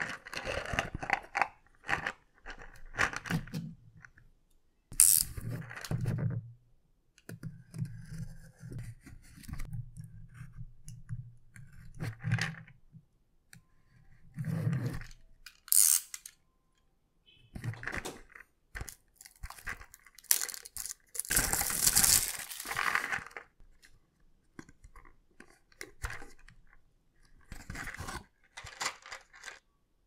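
Clear plastic shrink wrap on a small cardboard box being slit with a utility knife and torn off, in irregular bursts of crinkling, scraping and tearing, with the box handled in between. The loudest stretch of crinkling comes about two-thirds of the way through.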